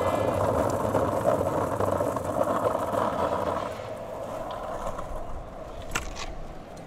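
Pro scooter wheels rolling over stone paving, a steady rolling noise that drops off a little over halfway through, then a single sharp knock near the end as the scooter meets a stone ledge.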